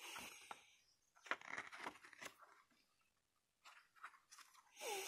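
Pages of a printed booklet being handled and turned, paper rustling with soft flicks; a pause, then more page rustling about four seconds in.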